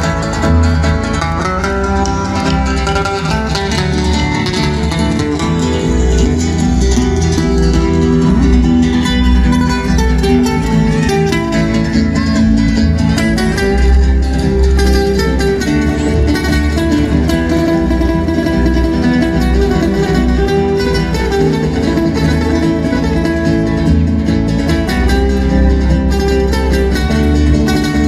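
Music led by strummed acoustic guitars.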